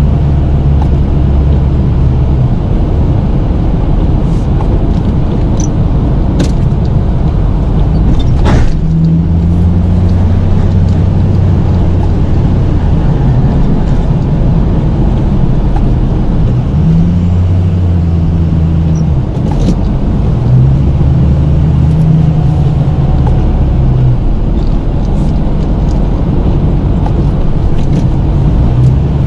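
Pickup truck engine running under the snowplow, its steady hum stepping up and down in speed in stretches as the truck pushes and backs, with a couple of sharp knocks about six and eight seconds in.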